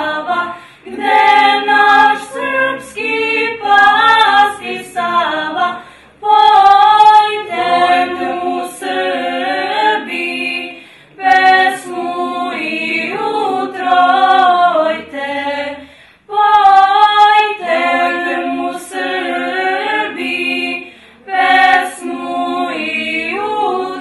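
Small group of female voices singing a cappella, in phrases of about five seconds with short breaths between them.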